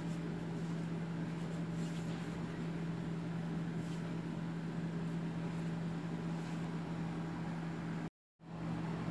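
A steady low machine hum, broken by a brief dead-silent dropout near the end.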